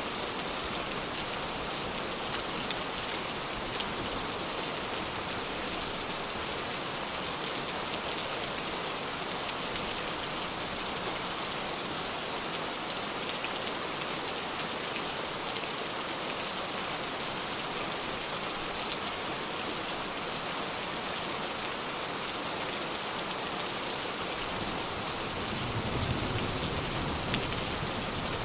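Steady rain falling, an even hiss with scattered small drop ticks. A low rumble swells up about 25 seconds in, near the end.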